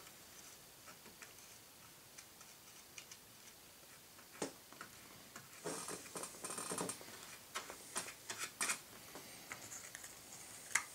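Small brush daubing and scraping epoxy onto bare wood: faint scattered taps and soft scratches, with a short scratchy stretch about six seconds in and a sharper click near the end.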